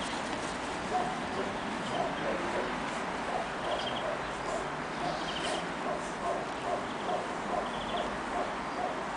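Dog yipping in a quick, even series of short calls, about two a second, starting a few seconds in.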